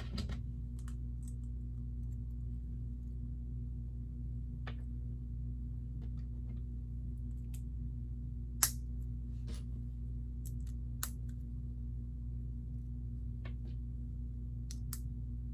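Light, scattered clicks and taps of plastic Lego bricks being handled and set down, the sharpest about halfway through, over a steady low hum.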